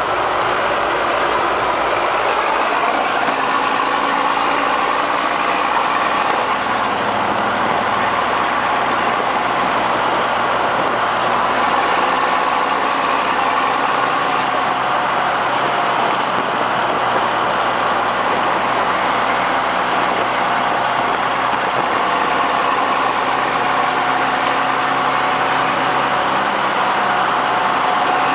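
Vintage military truck heard from inside its cab while cruising at highway speed: a steady engine drone mixed with road noise. The engine note shifts slightly about eight seconds in.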